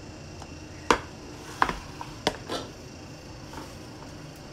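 A kitchen utensil tapping sharply against a dish four or five times, about a second in and over the next second and a half, while spice is added to mashed potato.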